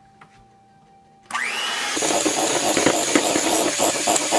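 Electric mixer switching on a little over a second in, its whine rising as the motor spins up, then running steadily with an irregular clatter as it beats butter and peanut butter together in a bowl.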